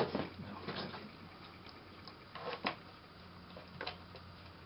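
A few scattered small clicks and taps of hands handling the metal collet chuck of a small bench drill press while fitting a drill bit, over a faint steady low hum.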